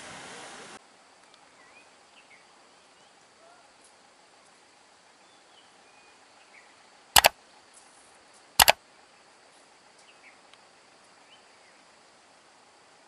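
Quiet outdoor background with faint bird chirps, broken by two sharp, loud bangs about a second and a half apart, each a quick double crack. Wind and vehicle noise is heard briefly at the start.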